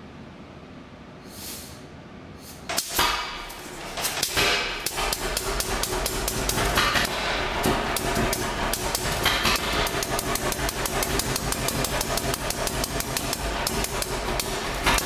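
1941 John Deere Model B two-cylinder tractor engine being hand-started: after a quiet stretch it fires with a sharp bang about three seconds in, then catches and runs with a rapid, steady string of exhaust beats.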